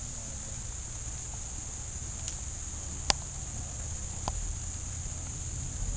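A steady high-pitched insect chorus. One sharp click about three seconds in, with fainter ticks a second before and a second after.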